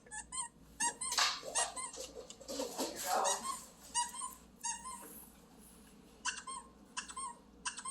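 Squeaky dog-toy sound effects played through an Alexa smart speaker: irregular runs of short, high squeaks, thinning out in the middle.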